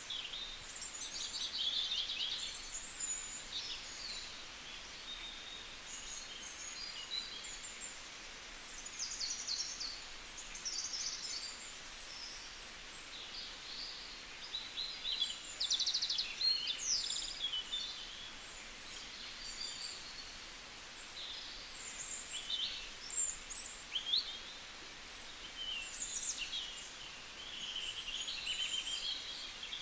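A mix of several small birds calling at once: high chirps, short whistles and rapid trills overlapping without a break, with a few louder, closer calls around the middle.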